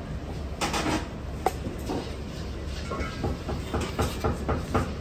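Metal kitchen utensils clank against a steel wok and a perforated metal strainer in irregular sharp knocks, thickest in the last second and a half, over a steady low rumble.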